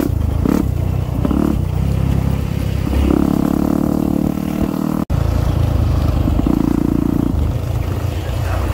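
Dirt bike engine running at speed, its note rising and falling as the throttle opens and closes. The sound cuts out for an instant about five seconds in.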